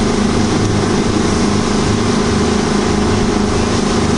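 Speedboat engine running at a steady pitch while the boat is under way, over a steady rushing hiss of water and wind.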